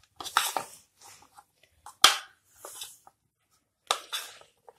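Metal spoon stirring and scraping against a bowl while tossing boiled cauliflower florets in cornflour and spices: a few irregular scrapes and knocks, the sharpest about two seconds in.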